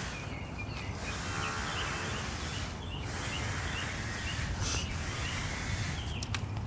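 Outdoor ambience: a steady low rumble with small birds chirping now and then, and a few sharp clicks near the end.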